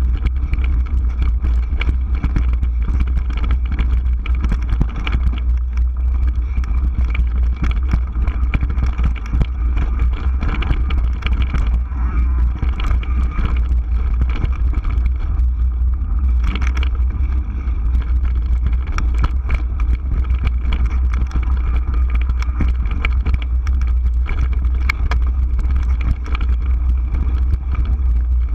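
A mountain bike ridden over slickrock and dirt trail, heard from a handlebar-mounted GoPro: a loud, steady low rumble of wind and vibration on the microphone, with constant small clicks and rattles from the tyres and bike. A sharper clatter comes a little over halfway through.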